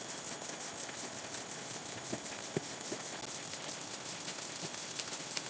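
A plastic-gloved hand mixing and kneading flour into a sticky banana dough in a wooden bowl: faint, irregular crinkling of the glove with soft pats and squishes of the dough.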